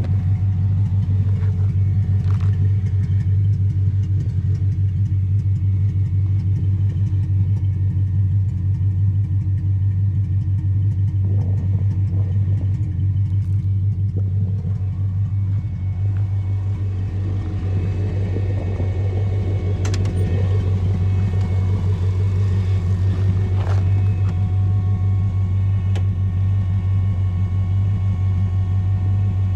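1932 Ford Roadster's engine idling steadily, a low even note that holds without revving.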